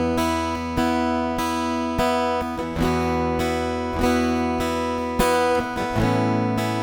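Guild F-250CE Deluxe jumbo acoustic-electric guitar played with steady strummed chords, a strum roughly every half second with the notes ringing between, changing to a new chord near the end.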